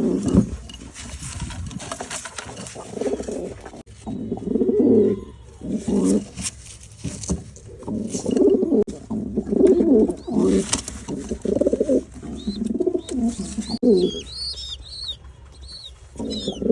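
Domestic pigeons cooing in repeated low, throbbing bouts, with short high-pitched chirps joining in during the last few seconds.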